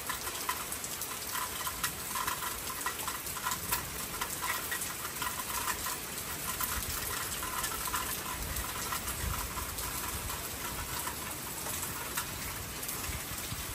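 Steady rain falling, a continuous wash of water noise with many fine ticks of individual drops.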